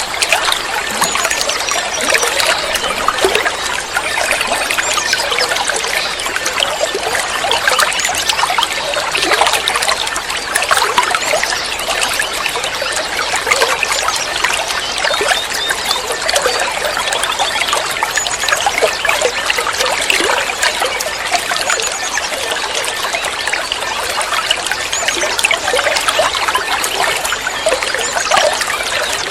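Steady trickling, splashing water, with faint high chirps now and then.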